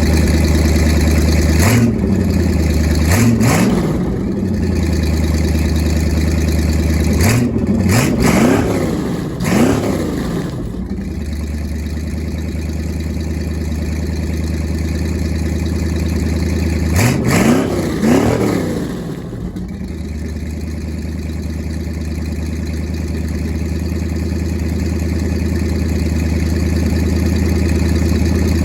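455 Oldsmobile V8 in a jet boat running through its exhaust: a steady idle broken by quick throttle blips in three groups, each rev rising and dropping straight back, before it settles to idle for the last third.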